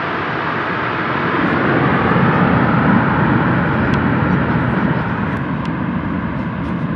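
Four-engine turboprop transport plane of the C-130 Hercules type, its engines running at high power on the runway: a loud roar that swells about two to three seconds in and then eases off slowly as the plane draws away.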